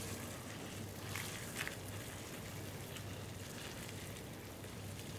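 Boiling water poured in a steady stream from a metal kettle into a plastic bowl over dry rice vermicelli, a faint, even splashing with a few light ticks.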